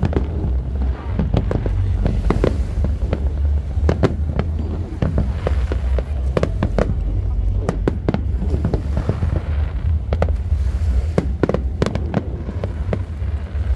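Aerial fireworks exploding in a rapid, irregular series of bangs and crackles over a continuous low rumble.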